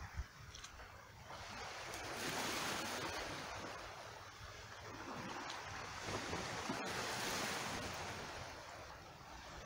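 Small waves washing in over a rocky, cobbled shore, the hiss of water rising and falling twice. A low rumble of wind on the microphone underneath, with a brief buffet at the start.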